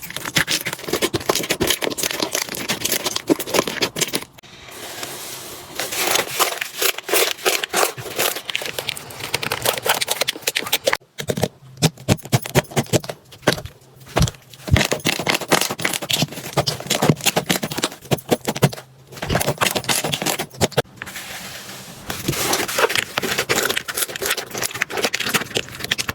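Slime being squished and worked by hand: dense, rapid wet clicking and crackling, broken by a few abrupt cuts.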